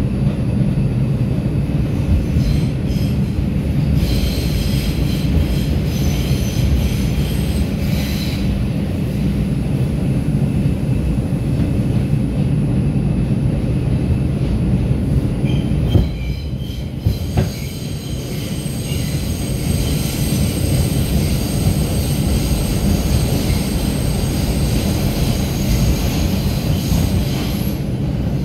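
Inside an R142 subway car running at speed: a steady low rumble of steel wheels on rail, with high-pitched wheel squeal coming and going. Two sharp knocks come a little past halfway.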